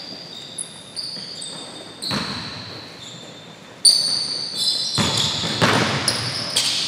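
Basketball bouncing and sneakers squeaking on a hardwood gym floor during play, echoing in the hall, with short high squeaks and sharp knocks; the noise grows louder and busier from about four seconds in.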